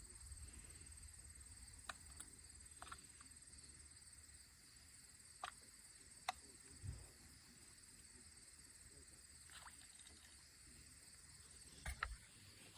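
Near silence: a few faint scattered clicks and taps and a couple of soft low thumps, over a faint steady high-pitched tone.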